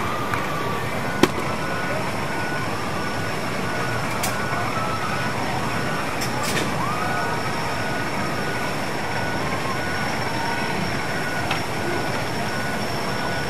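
Amusement park ambience: a steady mechanical rumble of rides, with a faint high beep repeating about twice a second and a sharp click about a second in.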